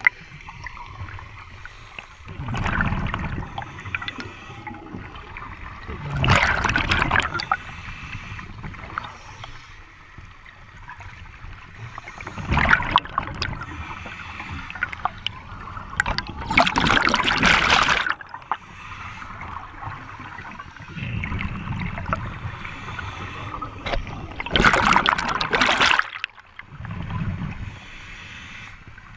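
Scuba regulator breathing underwater: four loud rushes of exhaled bubbles, each one to two seconds long and several seconds apart, with quieter low rumbles of air and water between them.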